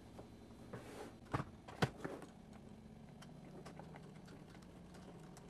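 A few small sharp clicks and taps of a screwdriver on the Traxxas micro servo as its screw is taken out, the loudest just under two seconds in, followed by faint scattered ticks.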